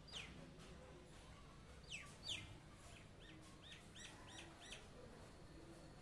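Common myna calling: three sharp, downward-sliding whistles, the loudest about two seconds in, then a quick run of about six short, high arched notes.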